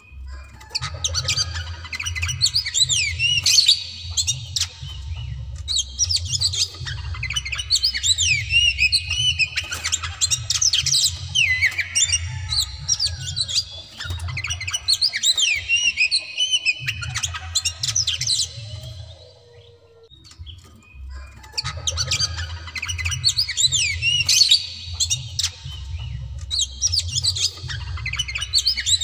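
Oriental magpie-robin (white-bellied kacer) singing hard: long, fast bouts of sweeping rising and falling whistles mixed with harsh clicking notes, with a short pause about two-thirds of the way through.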